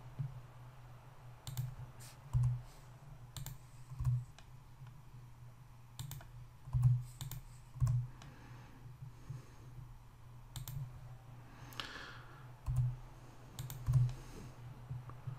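Computer keyboard keys and mouse buttons clicking in irregular, scattered presses about a second or two apart, over a steady low hum. These are the keystrokes and clicks of repeated extrude-and-scale commands.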